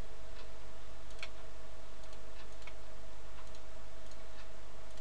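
A few faint, separate computer mouse clicks, spread out at about one a second, as letters are entered on an on-screen keyboard, over a steady low electrical hum.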